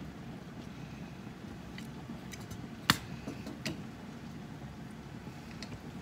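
Glass canning jars and a metal jar lifter clinking as a jar is handled at a water-bath canner: one sharp clink about three seconds in, a lighter one just after, and a few faint ticks over a steady low rumble.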